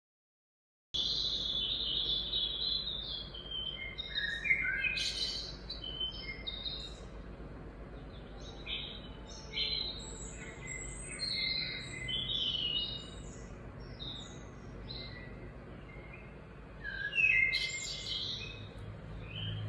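Birds chirping and calling, many short high calls of different pitches, over a steady low background hum; the sound starts abruptly about a second in after dead silence.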